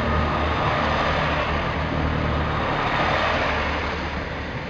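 First Great Western Class 165/166 Turbo diesel multiple unit passing close by as it pulls away, its diesel engines droning steadily under the running noise of the train. The sound starts to fade near the end as the unit moves off.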